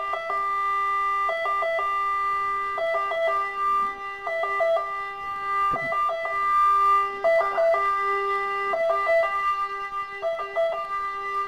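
Electronic keyboard music: a short stepped motif repeating about every second and a half over steady held notes.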